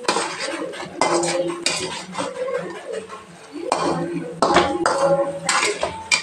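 A spatula scraping and clanking against a metal kadai while stirring whole brinjals in a thick masala gravy, in a string of irregular strokes.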